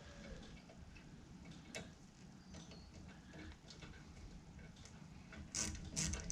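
Faint light ticks and handling of metal parts, then near the end a hand ratchet clicking in quick strokes, about two or three a second, tightening a hose clamp.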